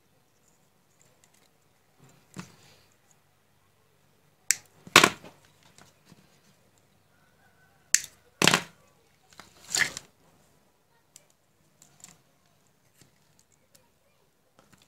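Diagonal cutters snipping through the insulation on the end of a thin wire to strip it: two pairs of sharp snaps a few seconds apart, then a short rasp as the insulation is pulled off.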